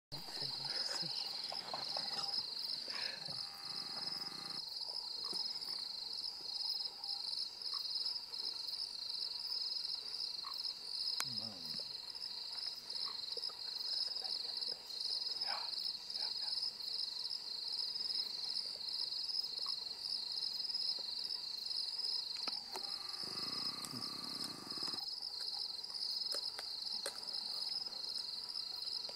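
Night chorus of crickets: a continuous high-pitched pulsing trill.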